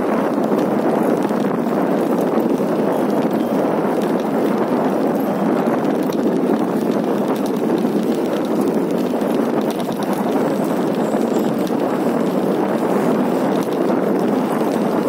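City bike rolling along a paved path: a steady, dense rattle and rolling noise from the moving bike.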